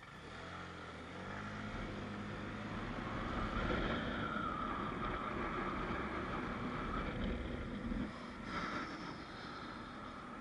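San Diego Trolley light-rail train going past: a rising and fading rumble, loudest a few seconds in, with a steady whine through the middle. A low hum sounds in the first few seconds.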